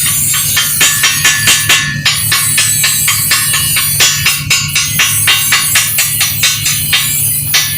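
Rapid metal-on-metal tapping, about three to four strikes a second, typical of a chipping hammer knocking slag off an arc-weld bead, over a steady low hum.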